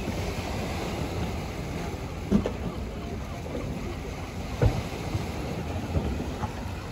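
Sea waves washing against shoreline boulders, with wind buffeting the microphone as a steady low rumble. A couple of brief low knocks, about two and a half and four and a half seconds in.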